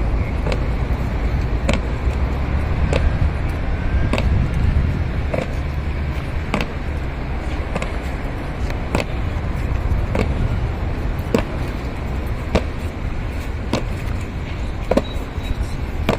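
Guards' boots striking the pavement in a slow, even march step, one sharp strike a little over every second, over a steady low rumble.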